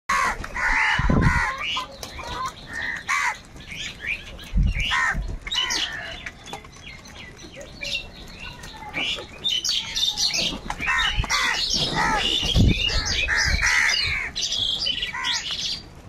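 A flock of house crows cawing, many harsh calls overlapping and coming in clusters, with several bursts of wing flapping as birds take off from the food.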